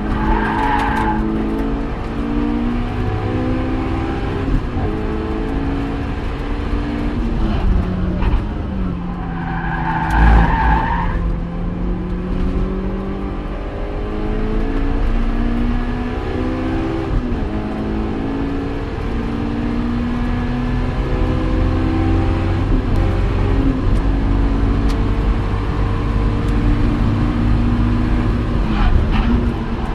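Honda S2000's four-cylinder engine at full throttle, heard from inside the cabin, rising in pitch and dropping back through several upshifts. Tyres squeal briefly near the start and again about ten seconds in.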